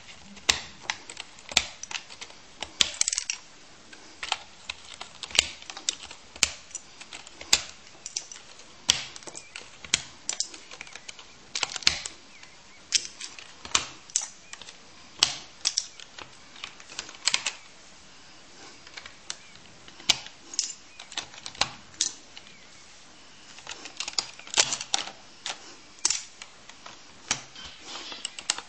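Sharp plastic clicks and snaps from an Apple computer keyboard's keys, coming irregularly at about one or two a second, sometimes in quick pairs.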